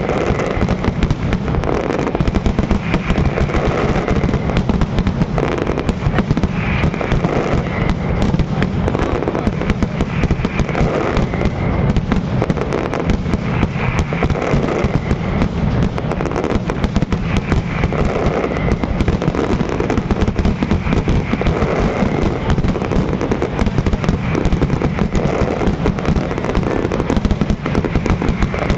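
Aerial fireworks display in a dense, unbroken barrage: many shells bursting and crackling at once, with no pauses.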